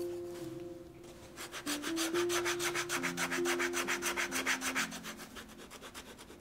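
Quick back-and-forth sanding or rubbing strokes on leather shoe work, about ten strokes a second, starting a little over a second in and fading near the end. Soft background music runs underneath.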